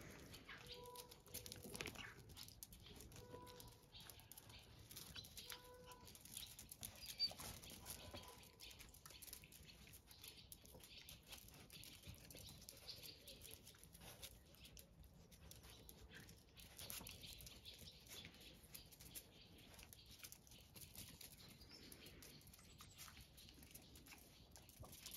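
Faint scrabbling and patter of puppies' paws as they play-fight and chase on concrete, with three short soft calls in the first six seconds and a single sharp tick about seven seconds in.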